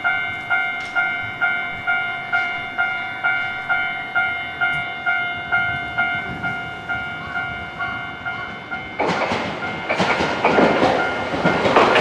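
Japanese level-crossing bell ringing its steady "kan-kan" ding about twice a second. Near the end it fades under the rising rumble and rail noise of an approaching Hankai tramway streetcar.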